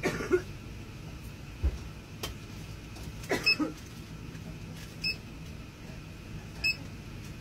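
Indoor background noise: a steady low hum with scattered knocks and rustles, and two brief high blips, one about five seconds in and one near the end.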